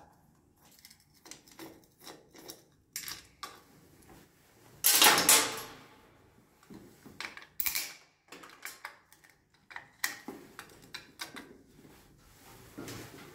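Hand tools being handled at a plastic wall socket plate: scattered small clicks and knocks of a screwdriver and pliers. A louder clatter comes about five seconds in, and another sharp knock follows near eight seconds.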